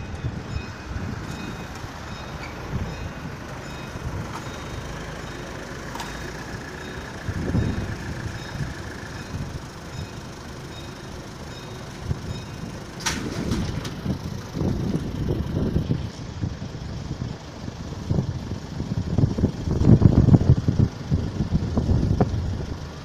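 Level crossing warning alarm sounding in a repeating pulsed tone while the barriers come down, dying away about halfway through, with a sharp knock just after. Low rumbling gusts of wind on the microphone throughout, loudest near the end.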